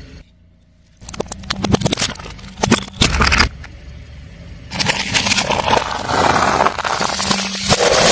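Car tyre rolling over and crushing crunchy objects: a run of crackles and crunches starts about a second in, and a louder, denser stretch of crunching comes a few seconds later, over the low running of the car's engine.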